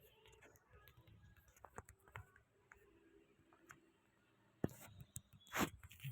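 Faint scattered clicks, then two louder sharp knocks about a second apart near the end.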